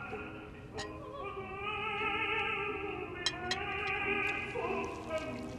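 Background score of operatic singing with orchestral accompaniment: a sung voice holding long notes with vibrato over sustained instruments.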